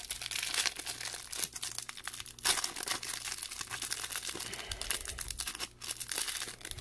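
Plastic booster-pack wrapper of a Magic: The Gathering Double Masters VIP pack crinkling as it is opened and handled, a rapid run of small crackles.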